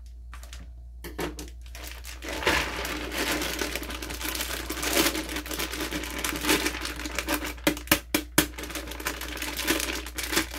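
Plastic mushroom grow bag crinkling as it is handled and emptied of colonized rye grain into a plastic tub, starting about two seconds in. A few sharp clicks come about eight seconds in.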